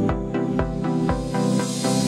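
Background music with a steady beat. In the second half the bass falls away and a rising hiss builds.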